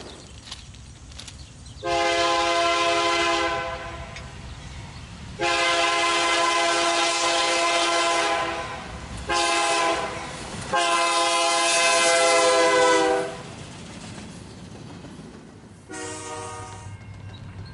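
GE C44-9W diesel locomotive's air horn sounding the grade-crossing signal: long, long, short, long, over a low rumble of the approaching train. A brief, quieter horn blast follows near the end.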